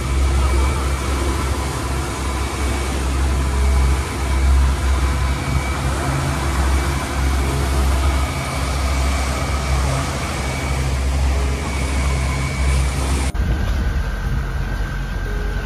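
Twin Suzuki 175 four-stroke outboard motors running at cruising speed, a steady drone with a thin whine, over heavy wind rumble on the microphone and rushing water from the wake. Near the end the sound cuts abruptly to a quieter, steadier engine hum.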